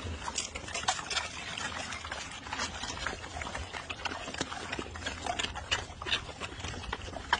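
Pigs eating raw eggs, shells and all: irregular crunching and cracking of eggshells with wet, smacking chewing.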